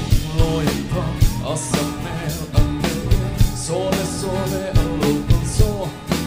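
Live band music: a cajon beat with bass guitar and guitar under a gliding melody line.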